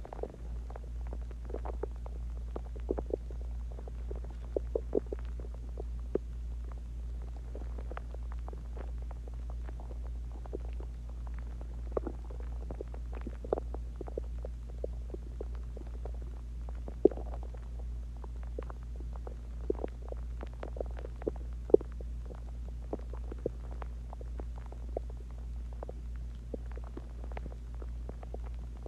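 Human stomach and intestines gurgling during digestion after a meal and water: a continuous, irregular stream of short bubbly pops and squelches over a steady low hum.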